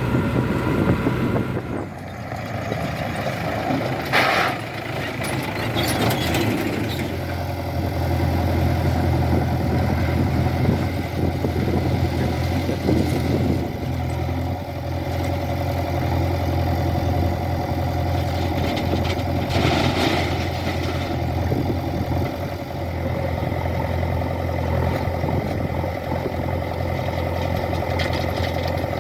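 Diesel engine of heavy farm or earth-moving machinery running steadily, with a few short noisy surges about four, six and twenty seconds in.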